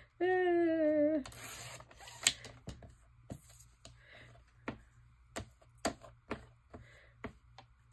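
A short hummed voice sound, falling slightly in pitch. Then comes a brief swish as a sliding paper trimmer's blade carriage is run through a strip of magazine paper, followed by scattered clicks and taps as the paper is handled on the trimmer's plastic base.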